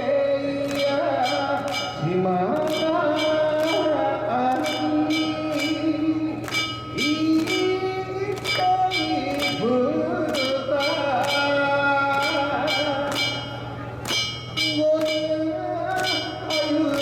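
Danjiri festival music: small hand gongs (kane) struck sharply in a fast, steady rhythm, about three strikes a second, under a melody of held notes that slide up into each pitch.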